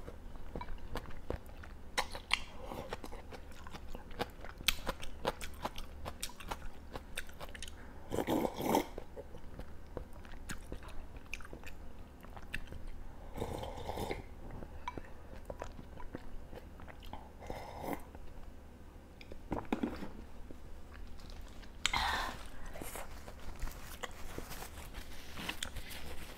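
Close-up mukbang eating sounds: chewing with many small wet mouth clicks and smacks, broken by several noisy slurps of hot hotpot broth drunk from a bowl.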